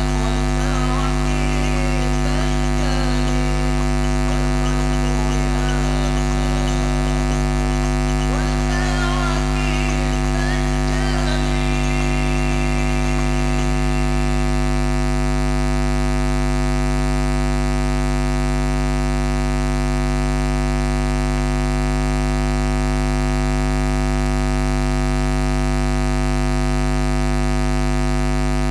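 Loud, steady mains hum and buzz from a PA sound system and mixer, a low drone with a stack of steady higher tones above it. Faint wavering sounds drift over it for roughly the first twelve seconds, then die away.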